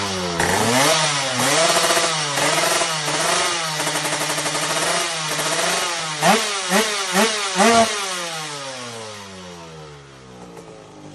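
Kawasaki Ninja KR150's drag-tuned 150 cc two-stroke single being revved over and over in quick rising and falling bursts, with four sharp, loudest blips a little past the middle. The revs then fall away and the sound fades toward the end.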